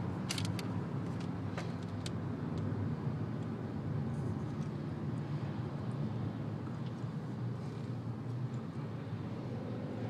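Steady road noise heard from inside a moving car's cabin: a constant low engine and tyre hum with tyres running on wet pavement, and a few light clicks in the first two seconds.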